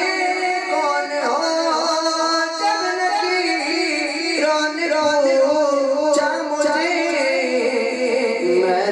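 A man sings a devotional naat into a hand-held microphone in long, wavering melodic lines, gliding between held notes.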